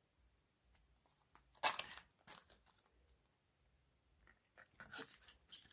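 Crinkling and rustling of nail wrap sheets and their packaging being handled, in short bursts: a cluster about a second and a half in and more near the end.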